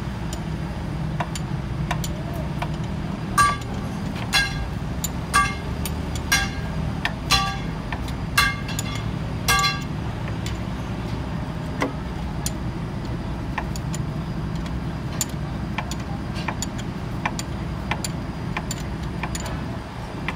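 A steel ring spanner clinking against a bolt on a Hino 1J truck engine block, seven sharp ringing clinks about a second apart, then fainter ticks. A steady low rumble runs underneath.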